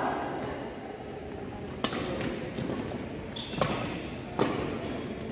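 Badminton rackets striking a shuttlecock in a doubles rally: about four sharp smacks spread over a few seconds, two of them in quick succession in the middle.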